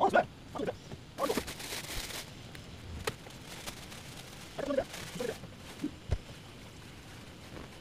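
Scattered movement and handling noises as a person gets up and moves away: a rustle about a second in, a sharp click around three seconds, short scuffs near five seconds and a low thump about six seconds in.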